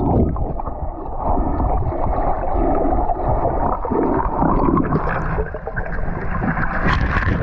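Muffled underwater rushing and gurgling of water against a submerged action camera's housing as the diver swims down, with a brief brighter surge near the end.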